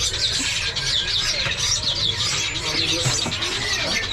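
A dense chorus of many caged songbirds chirping and trilling at once, over a low background murmur.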